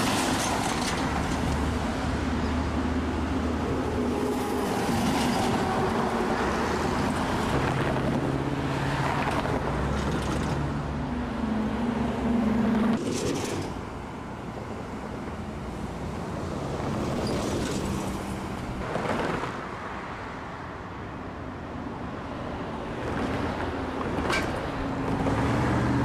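Road traffic: motor vehicle engines running and tyres hissing as vehicles pass close by, one after another. The level drops abruptly about halfway through and swells again near the end.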